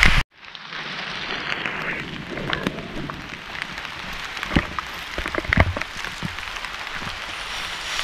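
Steady rain falling on dense foliage and a paved path, an even hiss with scattered light taps and knocks.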